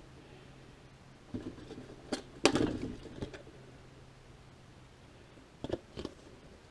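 Sharp clicks and knocks of hands handling parts on a workbench: a cluster about one and a half to three seconds in, the loudest about two and a half seconds in, then two more near the end, over a faint steady low hum.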